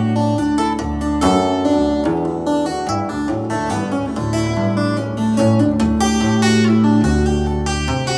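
Solo acoustic guitar played live: a quick run of ringing plucked notes over held low bass notes.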